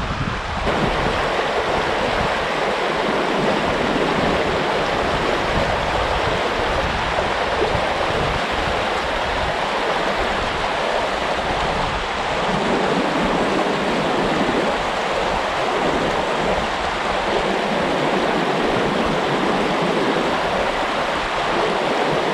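Running water of a small trout stream: a steady, even rush that gets a little louder about a second in.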